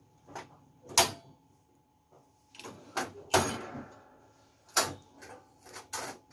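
Plastic clunks and clicks from handling a Ricoh DX2430 duplicator: its document feeder cover shutting and the paper feed tray being set up. A series of separate sharp knocks, the loudest about a second in.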